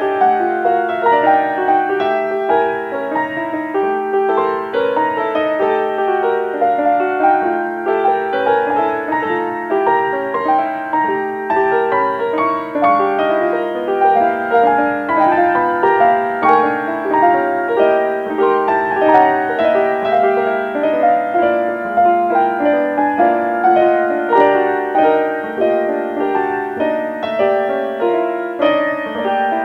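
Background piano music: a steady flow of quick notes over a held low note.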